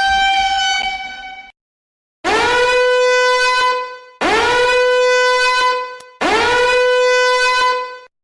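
Horn sound effect: three identical blasts of about two seconds each. Each swoops up in pitch into a steady, bright tone. Before them, an earlier pitched tone cuts off about a second and a half in.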